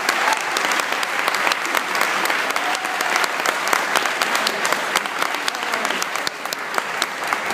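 Audience applauding: dense, steady clapping with a few voices among it, easing slightly near the end.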